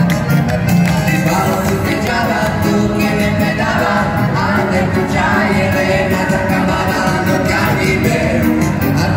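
Loud live band music on electronic keyboards with a steady beat, and a man singing into a microphone.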